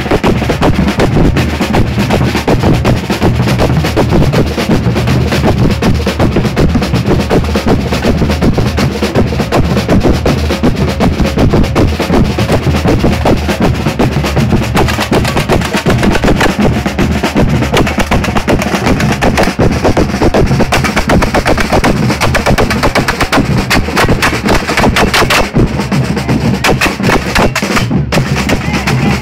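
Samba bateria playing in a street parade: surdo bass drums and other drums beating a loud, dense, continuous samba rhythm.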